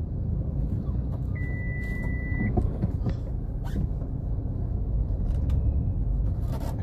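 A steady low rumble, with a short high-pitched beep about a second and a half in and a few faint clicks.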